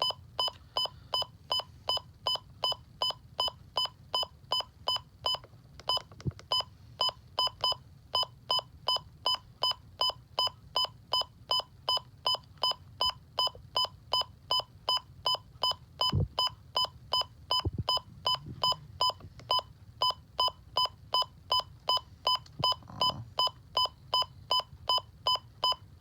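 Midland WR-120 weather radio's key beep repeating steadily about twice a second as its menu scrolls through the county list during programming. A few faint soft thumps occur alongside.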